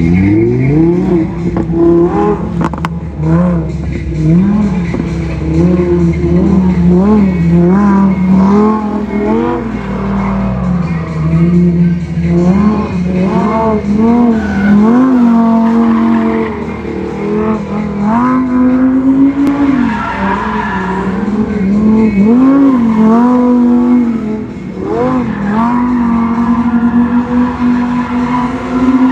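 Lamborghini Huracán EVO's V10 revving up and down over and over as the car drifts around cones, with tyres squealing and skidding on the tarmac.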